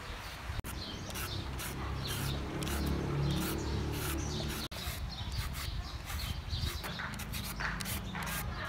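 Julienne peeler shredding a green mango: quick repeated scraping strokes, about three a second, over a steady low hum.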